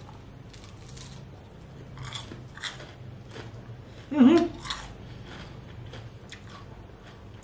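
Crispy fried chicken being bitten and chewed close to the microphone, with scattered crunches throughout. About four seconds in there is a short, louder hum of the voice, and a low steady hum runs underneath.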